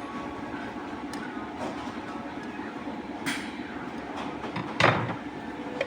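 Steady machine hum with several held tones, broken by a short noisy burst about three seconds in and a louder, longer one near five seconds.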